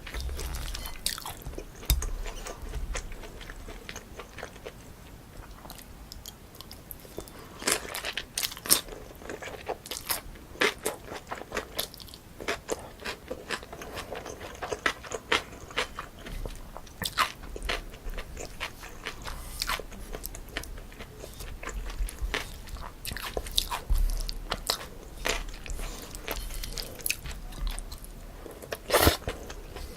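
Close-miked eating sounds: chewing with irregular sharp crunches and mouth clicks, from a bowl of chewy cold jjolmyeon noodles mixed with crisp cucumber and apple.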